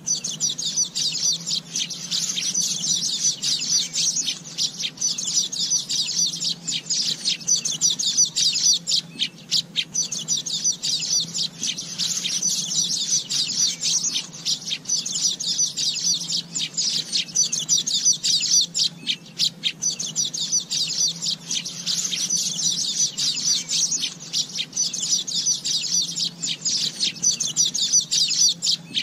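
Asian golden weaver chattering: a dense, continuous stream of rapid, high-pitched chirps and trills with only brief pauses.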